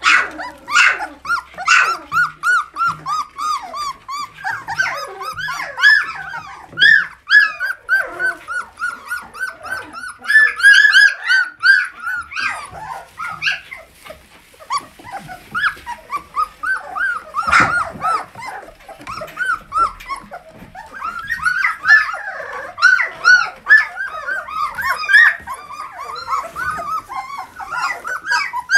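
Young puppies, about two and a half weeks old, whining and squealing: many short, high cries that rise and fall, overlapping one after another, with brief lulls.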